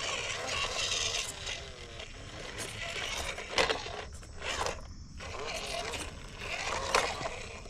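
WPL C34 RC truck driving, its brushed 370 electric motor whining up and down with the throttle over a noisy running sound, with two sharp knocks, one about halfway and one near the end.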